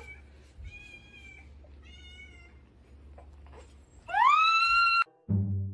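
Cat meowing: two short, faint meows, then one loud meow that rises in pitch, holds, and cuts off abruptly about five seconds in.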